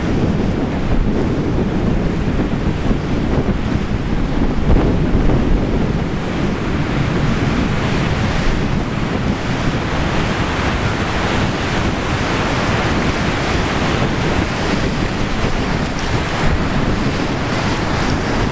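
Heavy wind-driven storm waves breaking and washing up a shallow lake beach, with strong wind buffeting the microphone: a steady, deep rush of surf and wind.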